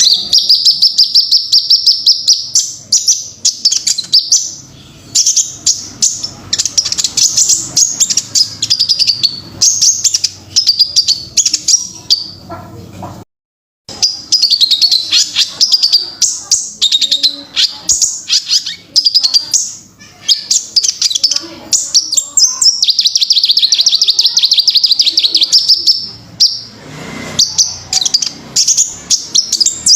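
Kolibri ninja sunbird song: a rapid string of high, sharp chirps and fast buzzing trills. Delivered as a repeated training recording, it cuts out briefly a little after 13 seconds and then resumes.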